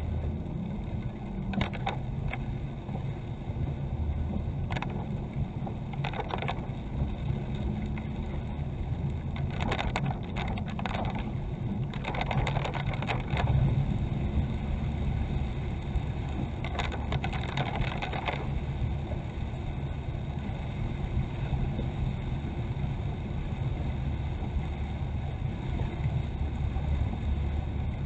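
Steady low rumble of a running vehicle, with short bursts of rattling or scraping several times, clustered between about 10 and 18 seconds in.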